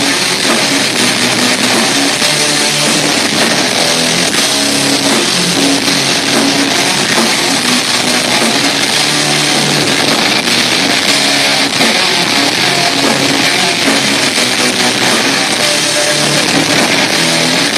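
Heavy metal band playing a song live and loud, led by electric guitars.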